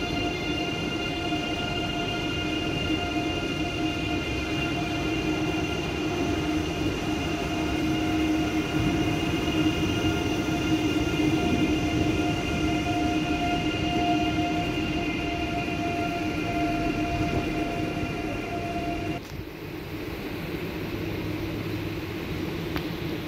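Deutsche Bahn ICE electric high-speed train rolling slowly through a station, with a steady electrical whine over the rumble of the train. The whine stops abruptly near the end, leaving quieter background noise.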